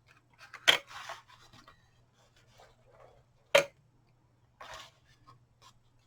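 Cardstock pages of a handmade mini album being handled: two sharp snaps of card, one about a second in and one past the middle, with paper rustling and sliding between them.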